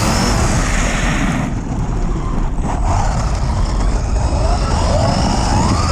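Radio-controlled car's electric motor whining and rising in pitch as it accelerates, over a heavy rumble of wind and tyres on the ground.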